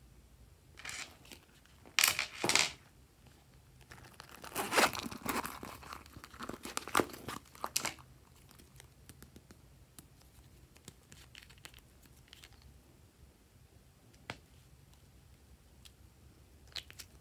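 Thin plastic wrapping being torn and crinkled off a makeup tube, in several short rustling spells, the loudest a couple of seconds in. It then goes quiet apart from a single sharp click later on and a fainter one near the end.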